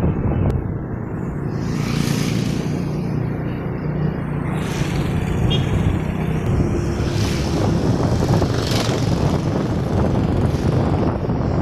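Motorcycle engine running steadily while riding down the street, with gusts of wind buffeting the microphone every couple of seconds.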